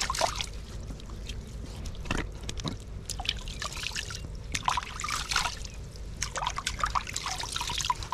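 Water splashing, trickling and dripping as a hand scoops it from a shallow grassy puddle and rubs it over the skin to wash. The splashes come in irregular clusters.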